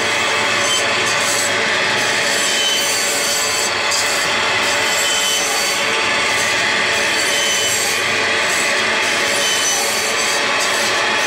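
Electric meat band saw running steadily while slabs of pork are fed through the blade; an even, unbroken noise throughout.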